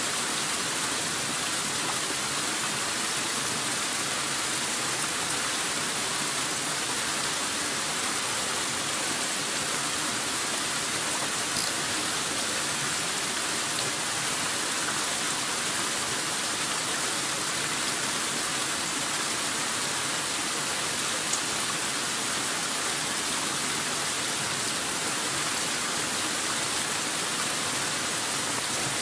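Small mountain stream running over rocks and spilling in little plunges into a pool: a steady, even rush of falling water. Two faint brief taps at about a third and two-thirds of the way in.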